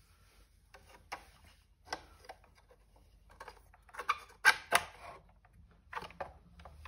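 Scattered light clicks and knocks of a small loudspeaker driver being picked up and handled over a plastic speaker housing, with a louder cluster of knocks about four to five seconds in.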